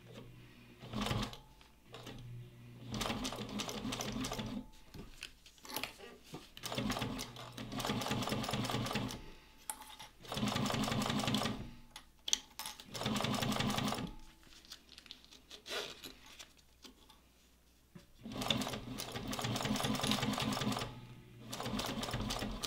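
Juki DU-1541S industrial walking-foot sewing machine stitching in several short runs of a few seconds each, stopping and starting between them as zipper tape is basted to a bag panel.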